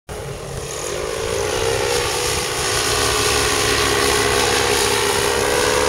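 Bailey V4-200 four-stroke paramotor engine and propeller running at flying power as the paramotor flies past. The note grows louder and rises slightly in pitch over the first two seconds, then holds steady.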